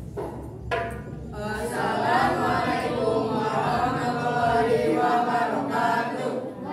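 A group of boys chanting together in unison, unaccompanied by the drums, the voices coming in about a second in and carrying on steadily.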